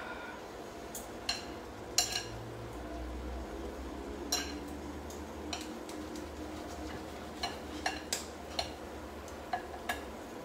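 Scattered clinks and knocks of a fork against a bowl and pans, about a dozen sharp taps at irregular intervals, over a low steady hum.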